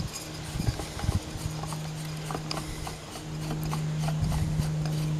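Scattered light knocks and clinks of metal pump parts being handled as the pump is taken apart, over a steady low hum that sets in about a second and a half in.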